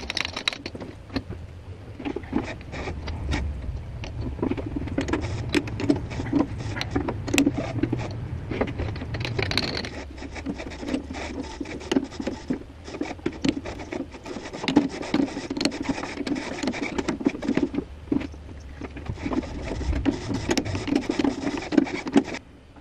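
A small hand tool scraping and clicking irregularly against a steel tap-holder mandrel, with a low hum under much of it; the sound stops abruptly near the end.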